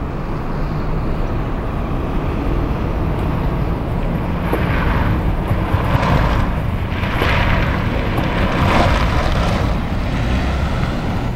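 A small service van drives slowly, weaving through a cone course, its engine and tyre noise under heavy wind rumble on the microphone. Several louder swells of noise come in the second half.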